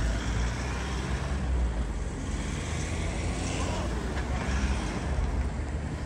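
Low, steady rumble of van engines running close by.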